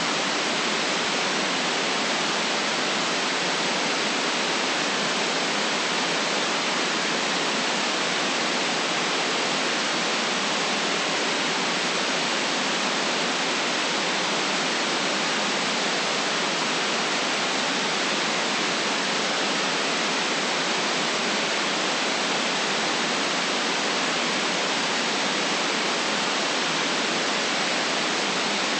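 Synthetic white noise: an even, unchanging hiss with the deepest lows and the highest treble cut off.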